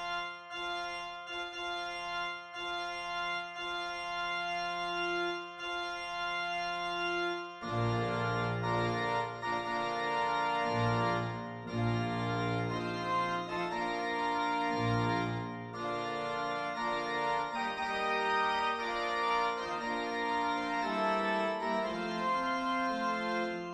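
Organ music played for a bride's entrance. Repeated held chords give way, about seven and a half seconds in, to a fuller passage with a deeper bass line and moving notes.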